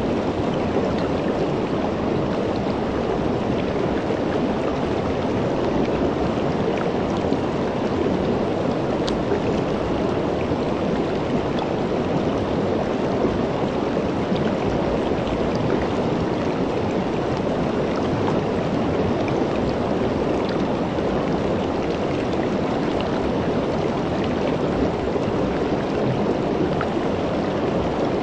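Shallow river running over rocks: a steady rush of flowing water, with faint small splashes ticking now and then.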